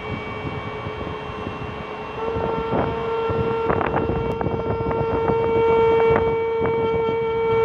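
A train in the station gives a steady pitched whine over rumble and clatter. About two seconds in, a trumpet comes in and holds one long note close to the train's pitch, playing along with it.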